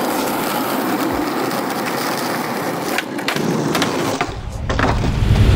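Skateboard wheels rolling on rough asphalt, then a sharp snap of the board about three seconds in as the skater pops a trick.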